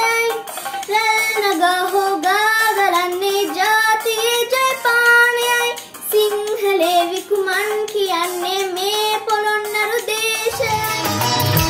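A young girl sings a Sinhala Buddhist devotional song (bodu bethi gee) solo, with no accompaniment heard. Near the end, instrumental music with a low beat comes in.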